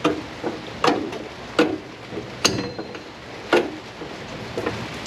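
About six sharp metallic clicks and knocks, roughly one a second, one with a brief ring about halfway through, from a hand tool at work cutting through the Mini's rear metal brake pipe.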